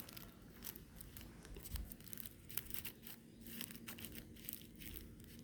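Scissors cutting open a paper-and-plastic prize-card packet: faint, irregular snips and crinkling.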